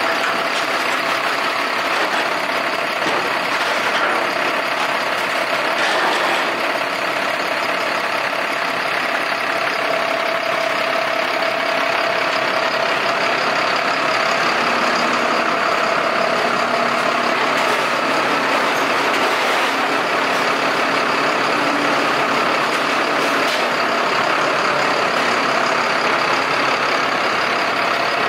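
Heavy equipment engine running steadily, with a steady whine over it and a lower hum that comes in midway and fades out later.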